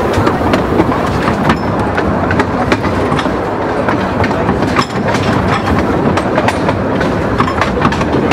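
Riding aboard a narrow-gauge steam train on the move: steady running noise with many irregular clicks and knocks from the wheels and rails.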